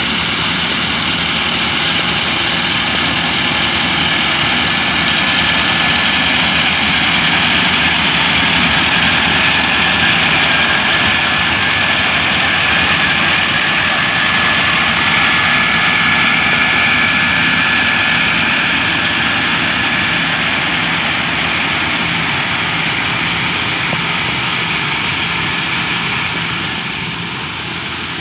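Yanmar AW6120 rice combine harvester running under load as it cuts and threshes rice: a steady diesel engine drone with machinery noise and a steady high whine, growing a little fainter near the end as the machine moves off.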